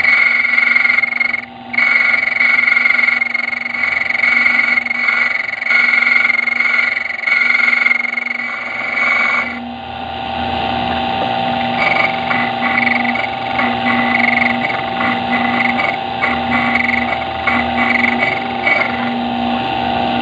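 Key-cutting machine running, its cutter grinding a duplicate key from a blank with a steady whine. About halfway through the sound changes and then comes in short, regular rasping pulses.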